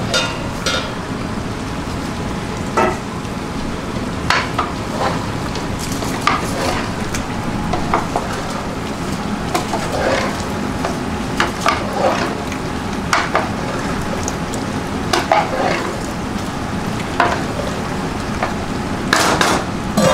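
Stirring in a large pot of vegetable curry, with irregular knocks and scrapes of the utensil against the pot over a steady sizzle.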